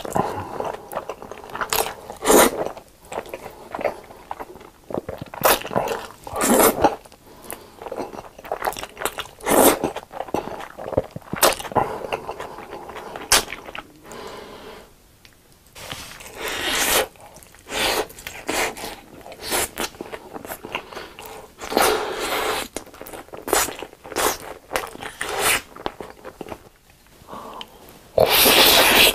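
Close-miked eating: black bean sauce noodles slurped in irregular bursts, some about a second long, between wet chewing sounds. A long, loud slurp comes near the end, as noodles and a piece of sauced fried chicken go into the mouth.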